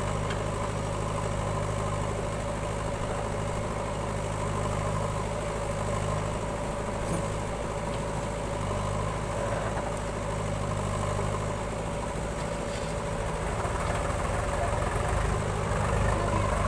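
Diesel engines of a JCB backhoe loader and a farm tractor running steadily at idle. From about three-quarters of the way through the engine note changes and grows a little louder as the tractor pulls away with its loaded trolley.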